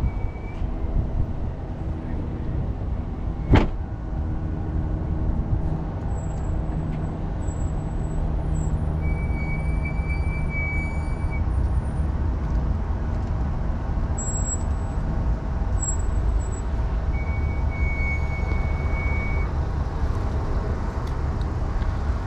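Steady low rumble of road traffic, with a single sharp knock about three and a half seconds in and a couple of brief, faint high tones later on.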